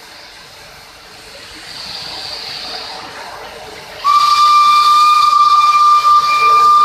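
Steam hissing from the EIR 21 steam locomotive, swelling a little about two seconds in. About four seconds in, its steam whistle cuts in loud and holds one steady high note.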